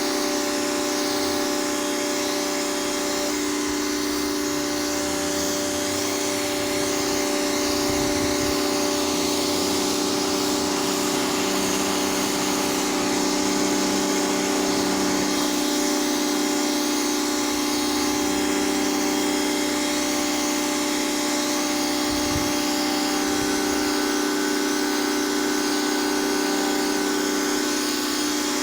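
High-pressure washer running continuously: a steady motor hum with the hiss of the water jet, unbroken throughout.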